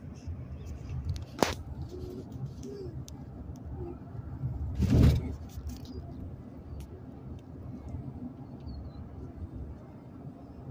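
Car cabin road noise with the windows closed: a steady low rumble of tyres and engine while driving. There is a sharp click about a second and a half in, and a brief, louder burst of noise around five seconds in.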